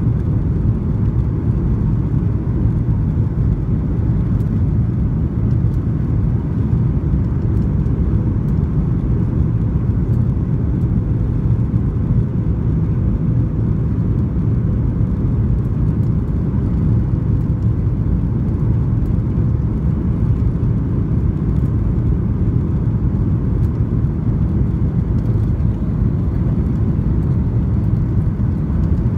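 Steady low rumble of cabin noise inside a Boeing 737-800 on final approach: its CFM56-7B engines and the rushing air, with a faint steady hum over it.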